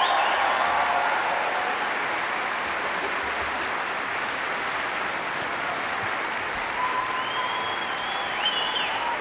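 Concert-hall audience applauding steadily just after an orchestra and choir finish, a dense clapping in a large, echoing hall.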